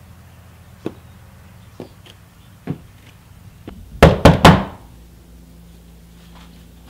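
A few slow footsteps, then three loud, quick knocks on a front door about four seconds in.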